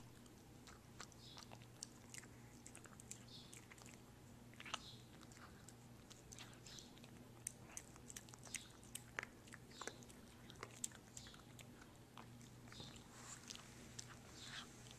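Black-and-tan Shiba Inu puppy chewing dry kibble: faint, irregular crunches and clicks, over a low steady hum.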